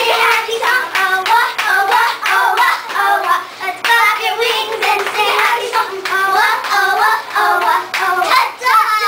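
Young girls singing and chanting a hand-clapping routine, with sharp claps and hand slaps between the lines, and a long held high note near the end.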